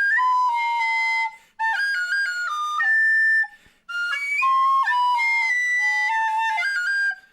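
Flute playing a melody of stepped, held notes in three short phrases, with brief breaks about a second and a half and about three and a half seconds in.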